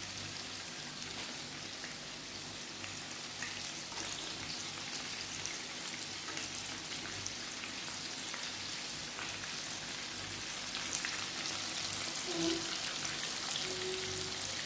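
Breaded chicken strips frying in hot cooking oil: a steady sizzle with fine crackling, the strips nearly cooked and browning.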